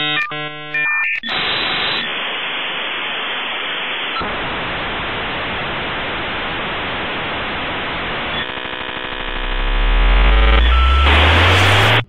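Electronic intro sound effects: a brief glitchy stutter, then loud steady static hiss. About eight seconds in a buzzing stretch starts, and a deep rising sweep builds under it until everything cuts off suddenly at the end.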